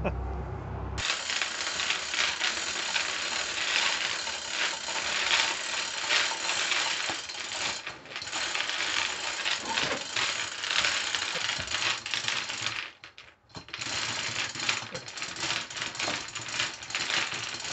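Hand chain hoist lifting a heavy Tesla Model S rear drive unit: fast, continuous ratcheting clicks and rattling chain, with a short pause about two-thirds of the way through.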